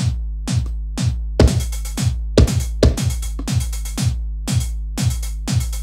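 Drum-machine beat played from Native Instruments Maschine: evenly spaced drum hits about two a second over a held low bass note, with a few louder hits near the middle.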